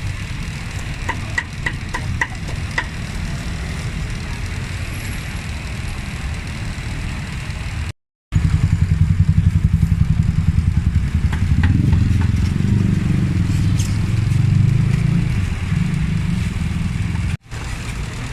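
Steady low engine rumble of motor traffic, louder and pulsing after about eight seconds, with a few light ringing clinks about a second in.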